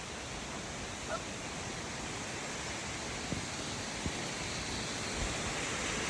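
Steady rushing of falling water from Fitzroy Falls, growing slightly louder near the end, with a few soft knocks partway through.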